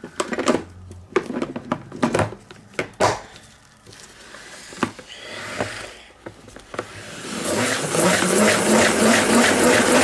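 Plastic salad spinner handled with a few knocks and clicks, then spun up from about seven seconds in: a loud whirring with rapid, even clicking as it spins wet paint across the paper inside.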